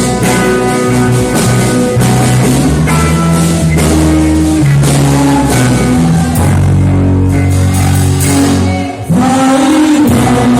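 Church worship music with singing, played by a band with drums, guitar and bass; the music drops out for a moment about nine seconds in.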